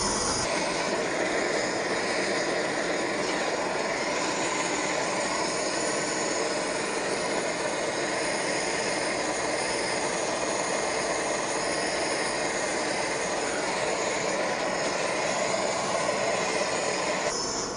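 Handheld propane torch burning with a steady rushing hiss as its flame heats the steel bushing bore of a trailing arm. The heat expands the bore to take a tight press-fit bushing.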